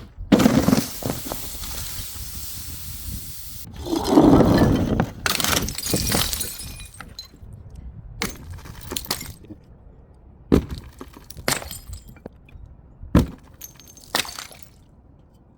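Glass smashing twice, each a loud crash with about three seconds of clattering breakage, the first right at the start and the second about four seconds in. After that come scattered sharp clinks and knocks of glass pieces.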